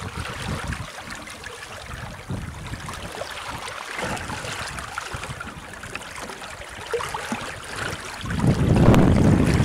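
Water rushing and splashing past the hull of a sailboat under way at sea, with wind buffeting the microphone. It swells much louder near the end.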